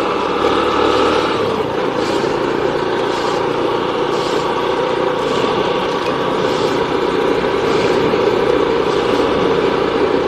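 Steady engine and road noise from a moving vehicle, holding an even level.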